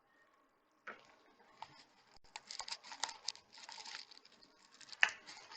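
A prying tool working at the seam of an Amazfit Stratos smartwatch case: quiet scraping and many small clicks that start about a second in, with a sharper click near the end.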